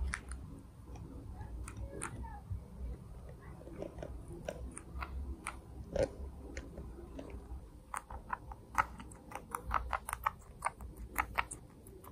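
Guinea pig biting and chewing a cherry tomato: small, sharp clicks, scattered at first, then coming quickly, several a second, in the last few seconds.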